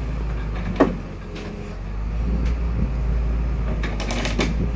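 Heavy truck engine running steadily, with a single sharp clack about a second in.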